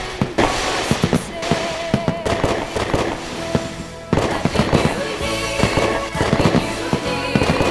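New Year fireworks going off in quick succession, a dense run of bangs and crackles that eases briefly near the middle and then picks up again, with music playing along.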